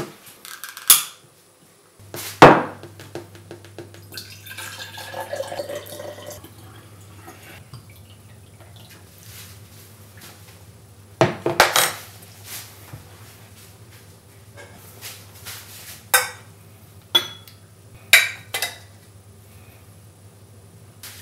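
Tableware handled on a wooden table: sharp knocks and clinks of glass and crockery, the loudest a hard knock about two seconds in. A few seconds in, water is poured into a glass, and near the end a ladle clinks against a saucepan and bowl as soup is served.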